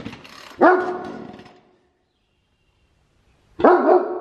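A dog barking: one bark about half a second in, then two quick barks near the end.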